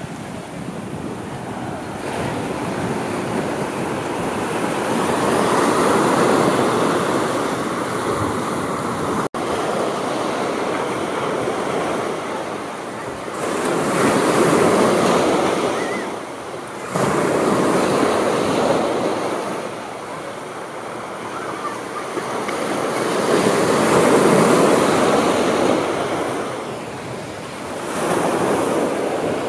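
Ocean surf breaking and washing up a sandy beach, the rush of water swelling and easing every several seconds as each wave comes in.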